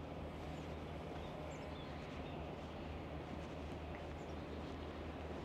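Outdoor ambience: a steady low rumble, with a few faint, brief bird chirps now and then.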